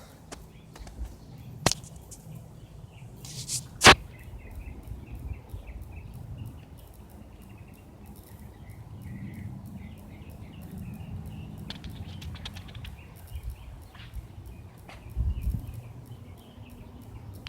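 Outdoor ambience: rapid, repeated high chirping over a steady low rumble, with two sharp knocks near the start, the louder one about four seconds in.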